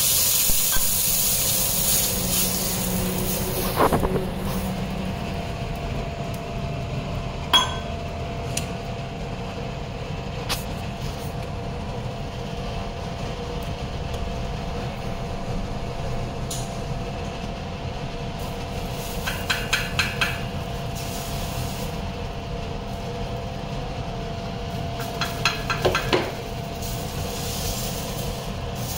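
Water sprinkled onto a hot dosa tawa sizzles for the first few seconds, then dies away. Later a ladle clinks against the metal batter pot in quick runs, twice, as the dosa batter is stirred and scooped.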